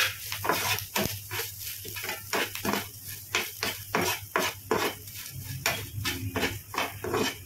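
Metal spatula scraping and tapping in a non-stick pan, stirring coriander seeds, chana dal, dried red chillies, curry leaves and grated coconut as they roast in a little oil for a sambar paste. Quick, irregular strokes, about two to three a second, over a steady low hum.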